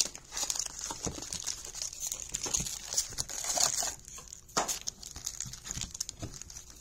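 Foil wrappers of Magic: The Gathering collector booster packs crinkling, with irregular clicks and rustles as stacks of packs are picked up, fanned and set down.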